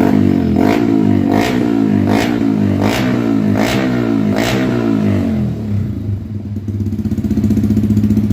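Yamaha XSR155's single-cylinder engine breathing through an Akrapovic full-system exhaust, blipped about seven times in quick succession, each blip a sharp snap that falls away in pitch. After about five seconds it settles back to a steady idle.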